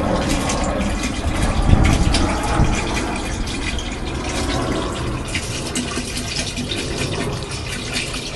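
Liquid pouring steadily from a tipped bucket into a tank, a continuous splashing pour.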